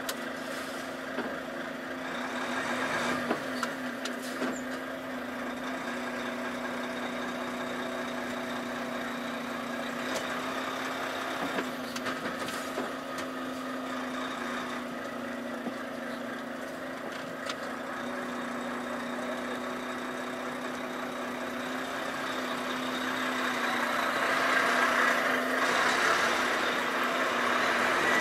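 Volvo FH truck's diesel engine running at a steady pitch, getting louder in the last few seconds.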